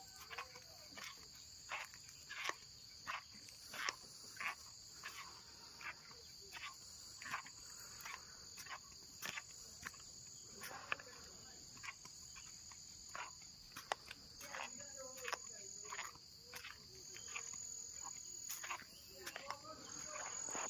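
Steady high-pitched chorus of insects such as crickets, with short sharp clicks or crunches about twice a second on top.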